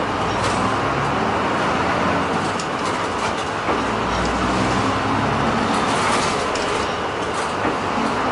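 Route bus driving along the road, heard from inside the passenger cabin: a steady drone of the engine and a wash of tyre and road noise.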